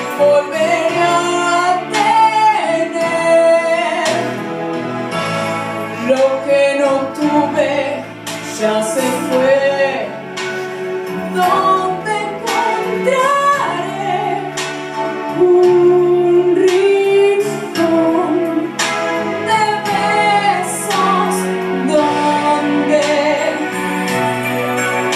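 Music: a female voice singing a song over instrumental accompaniment.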